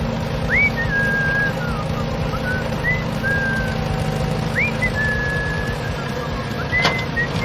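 Whistled notes, each a quick upward sweep then a short held tone, repeated over a steady low motor hum; a sharp click comes near the end.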